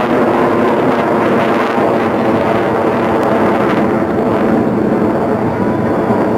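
A formation of F/A-18 Hornet jets passing overhead: steady, loud jet engine noise, its higher hiss easing a little about two-thirds of the way through.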